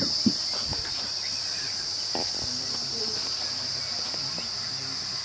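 Crickets chirping in a steady, high-pitched chorus, with a brief knock about a quarter second in.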